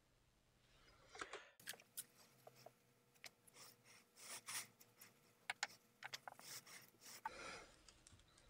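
Faint handling sounds: a microfibre towel rubbing and rustling around a burnt microSD card, with scattered light clicks and taps of metal pliers. A longer rubbing swish comes near the end.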